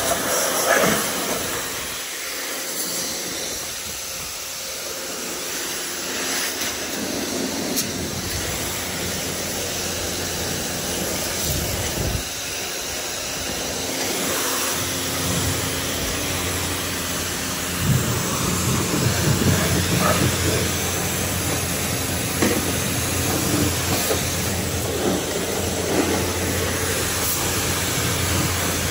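High-pressure car wash wand spraying water in a steady hiss onto the fiberglass deck and outboard of a Carolina Skiff J16, getting louder a little past halfway.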